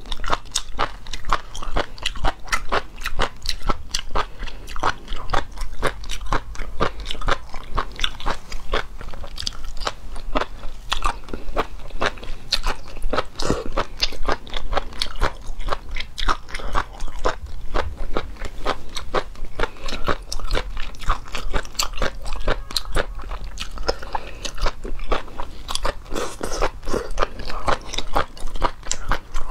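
A person chewing and crunching spoon worms (sea intestine) in sauce: a continuous run of quick wet clicks and crunches, several a second, with no pauses.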